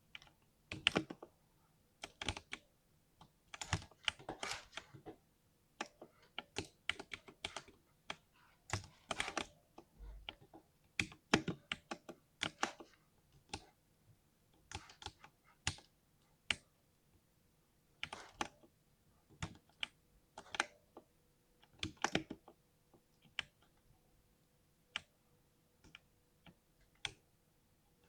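Typing on a 60% mechanical keyboard with a smooth 'thock' keystroke sound, in irregular runs of keystrokes broken by short pauses.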